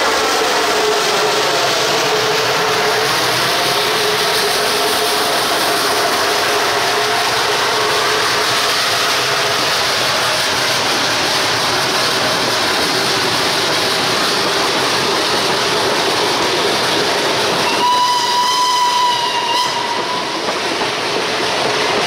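Narrow-gauge steam train passing close by: the locomotive's sound falls in pitch as it goes past, then a long string of empty log wagons rolls by with steady rattling wheel noise on the rails. Near the end a high whistle sounds for about two seconds.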